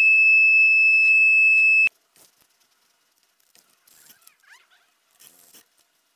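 Electronic edge finder in the milling machine's chuck beeping with one steady, high-pitched tone while its probe touches the steel workpiece, the sign that the edge has been found. The tone cuts off suddenly about two seconds in. After it come a few faint clicks and handling sounds.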